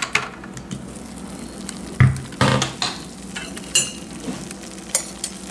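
Crock-Pot slow cooker's locking lid clips snapping open and its glass lid being handled: a handful of sharp clicks and knocks, the loudest about two seconds in. Under them is a soft sizzle of goat fat rendering into tallow on low heat.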